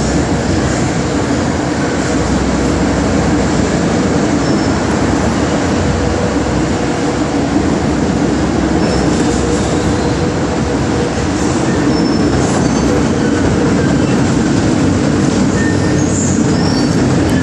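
Metro train running at speed, heard on board: a steady rumble of wheels on rail with a faint steady motor tone and several short, high wheel squeals.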